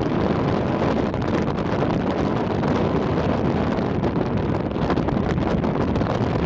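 Steady wind blowing across the microphone on the open deck of a cruise ship under way.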